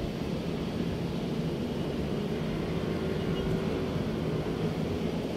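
Steady low mechanical hum, an engine or motor running at constant speed in the background.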